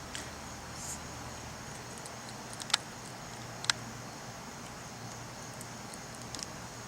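A skunk eating cat food: a few sharp clicks, two loud ones about a second apart near the middle, over steady cricket chirping and background hiss.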